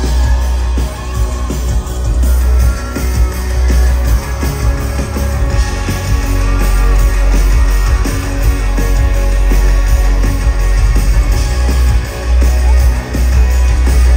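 Loud amplified music with a heavy, steady bass, played over an event sound system.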